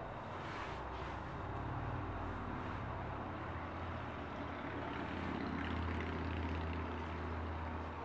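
A steady low hum over a rushing noise, the hum growing a little stronger about five seconds in.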